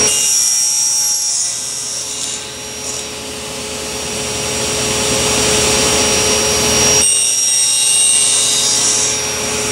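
Table saw running with a steady hum, its blade cutting tooth notches into a wooden gear blank: two cutting passes, one at the start and a second from about seven seconds in.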